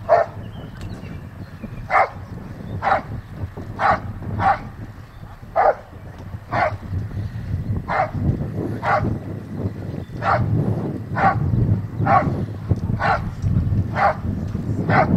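Dog barking steadily at a helper hidden in a protection blind, about one sharp bark a second: the hold-and-bark, in which the dog guards the decoy without biting.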